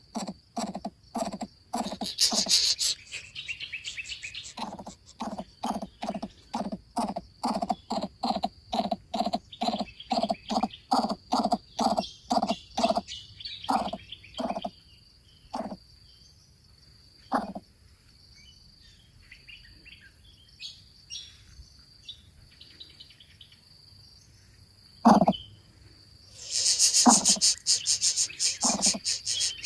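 A bird calling in a long run of short repeated notes, about two to three a second, that slows and stops about halfway, with a few single calls later. A steady high insect buzz runs underneath, and bursts of high-pitched chatter come near the start and near the end.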